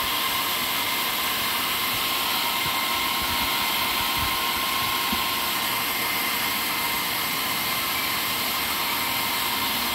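Steady rush of air from the cooling fans of a running 2000 W FM power amplifier, with a thin steady whine in it.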